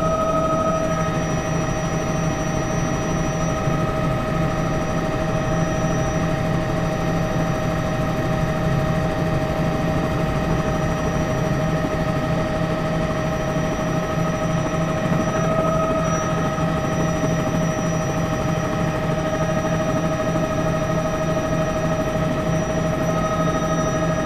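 News helicopter running steadily: a constant rotor drone with a steady, high-pitched turbine whine.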